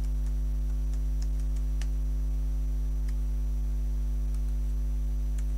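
Steady electrical mains hum with a low buzz, and a few faint, scattered clicks over it.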